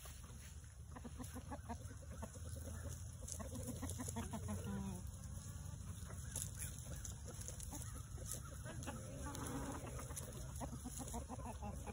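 A flock of free-range chickens clucking as they forage, with short scattered calls and a few longer pitched ones, over a steady low rumble.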